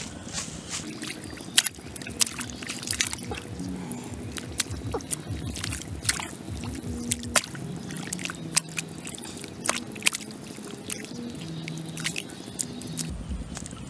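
Hands splashing and slapping in shallow muddy water while grabbing at an eel: irregular sharp splashes and sloshing.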